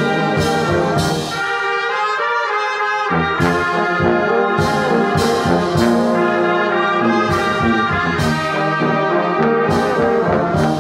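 Brass band (trumpets, trombones and tubas) playing a hymn passage in sustained chords. The low brass drops out about a second and a half in and comes back in about three seconds in with the full band.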